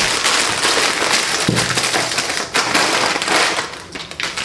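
Crinkling and rustling of candy packaging handled close to the microphone: a dense, loud crackle that carries on with only short dips.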